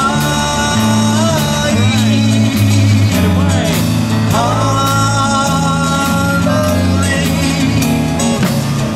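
A slow song played by a live band with drum kit, bass and guitar, the melody holding long notes.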